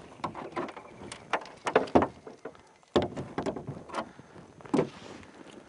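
A hooked trairão splashing at the water's surface as it is played on the line: a string of irregular splashes, the strongest about three seconds in and again near the end.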